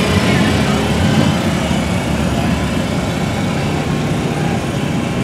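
A large engine idling steadily.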